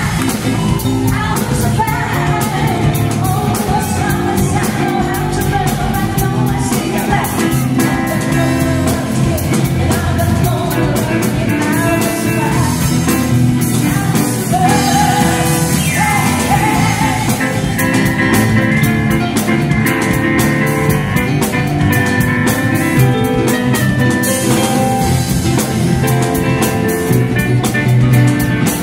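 Live band playing upbeat dance music: a voice singing over an electronic keyboard and a drum kit with a steady beat.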